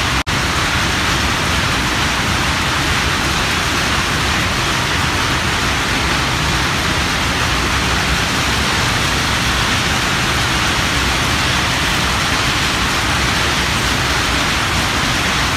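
Steady, loud hiss-like noise with no pitch or rhythm, broken once by a brief dropout about a quarter second in.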